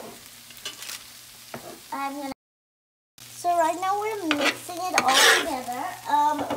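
Onions, bell peppers and masala frying on a hot griddle pan, sizzling while a wooden spatula stirs and scrapes them; the stirring is louder in the second half. The sound cuts out for about a second partway through, and a voice is heard over the later stirring.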